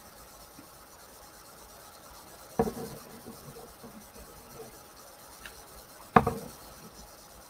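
Hair straightener being handled and pulled through hair: a faint rubbing, with two short clacks, about two and a half and six seconds in.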